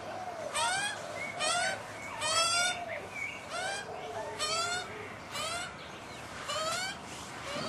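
Pacific black duck ducklings peeping. One loud high call comes roughly once a second over a steady chorus of softer peeps.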